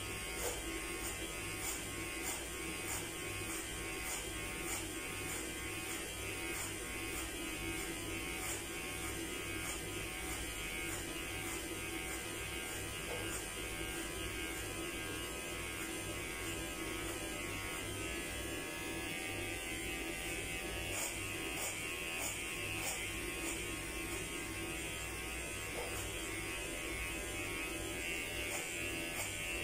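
Electric hair clippers running steadily while cutting hair at the back and side of the head.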